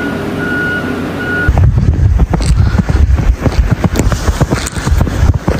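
A vehicle's reversing beeper sounds a few short beeps. About a second and a half in it gives way to loud, uneven rumbling noise.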